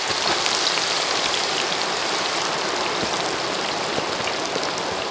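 Sliced green banana deep-frying in hot oil in a metal wok, the oil bubbling hard around the freshly added slices. It is a steady, dense sizzle with many small crackles.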